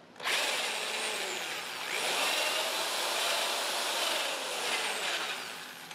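Corded electric drill with a long bit boring down through the lifter bore into the valve guide of a Model T Ford engine block. It starts a moment in, runs up in pitch about two seconds in, and winds down near the end.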